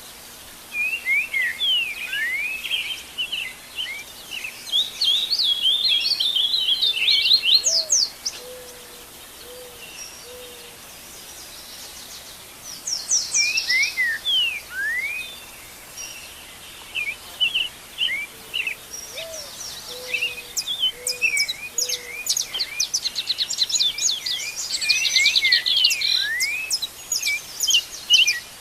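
Dawn chorus of several wild birds chirping and trilling over one another. Twice, a lower hooting call of a rising note followed by a few short notes sounds beneath the chorus.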